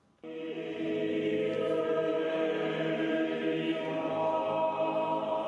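Small choir singing sustained chords, all voices coming in together about a quarter second in, in the reverberant acoustics of a cathedral.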